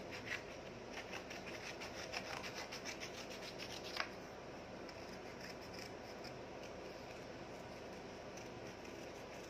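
Small scissors cutting a drawn flower shape out of a sheet of A4 paper: a quick run of short snips, several a second, ending in a sharper snip about four seconds in, then softer, slower cutting with paper rustling.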